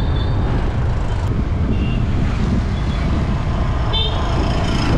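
Motorcycle ridden at speed: heavy wind rush on the microphone over the engine and road noise, with a short horn toot about four seconds in.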